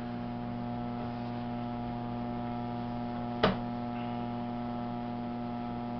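Electric potter's wheel motor running with a steady electrical hum while a tall clay vessel is thrown on it. One sharp click about three and a half seconds in.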